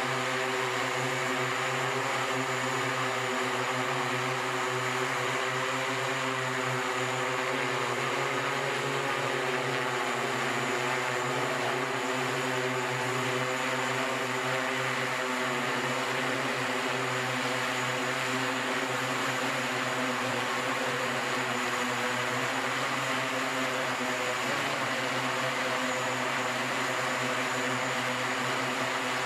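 SkyDrive SD-03 eVTOL's electric propellers running steadily in flight: a steady drone of several tones over a rushing hiss. The pitch wavers about ten seconds in and drops slightly about 24 seconds in.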